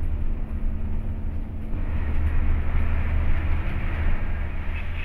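Coach bus engine droning low and steady with road noise, heard from inside the driver's cab while driving; the hiss of tyre and wind noise grows a little louder about two seconds in.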